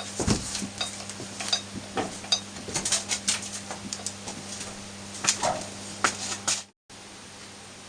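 Irregular metal clinks and taps from a steel valve and tools being handled on a Moskvich M-412 cylinder head, some with a short bright ring, over a steady low hum. The sound cuts off abruptly near the end.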